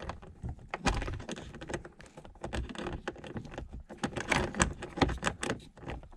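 Irregular small clicks and knocks of a hand tool and metal and plastic parts being handled while the screws of a rear heater-box actuator are started.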